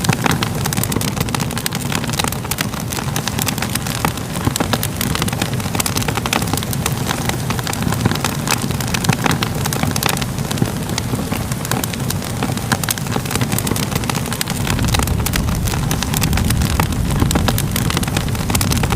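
Fire crackling steadily over a low roar, with many small pops and snaps; about three-quarters of the way through a deeper rumble comes up underneath.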